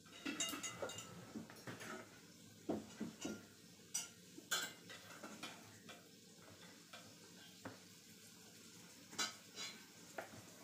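Chopsticks, forks and tongs clinking and scraping against plates, bowls and a tabletop grill plate in irregular, scattered clinks. There is a cluster in the first second, then single clinks every second or so.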